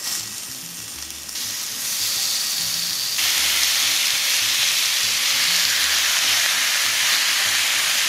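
Seasoned, oiled pork chunks sizzling as they go into a hot cast-iron skillet. The frying hiss grows louder in steps as more pieces are added, reaching a full, steady sizzle about three seconds in once the pan is crowded with meat.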